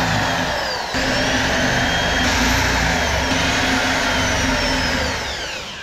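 Electric drill running as it bores holes into a laminated cabinet panel. The motor whine glides up and down in pitch, breaks off briefly about a second in, and winds down with falling pitch near the end.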